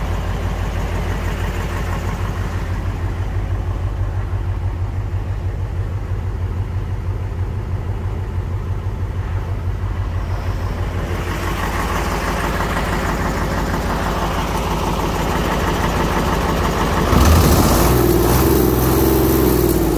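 Iveco TurboTech 256M26 truck's diesel engine idling steadily, with an even low beat. It gets louder and brighter about seventeen seconds in.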